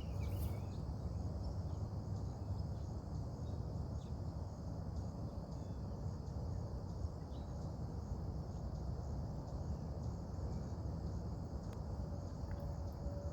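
Steady high-pitched chorus of insects buzzing without a break, over a continuous low rumble, with a few faint ticks.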